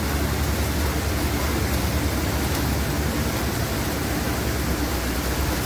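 Steady hiss of heavy monsoon rain and wind, with a low rumble underneath.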